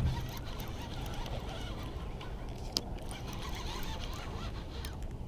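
Baitcasting reel being cranked to reel in a hooked channel catfish, with one sharp click about three seconds in.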